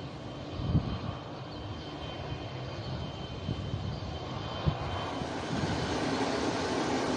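Airplane engine noise, a steady rumble with a faint high whine, growing louder about five seconds in. A few brief low thumps are heard.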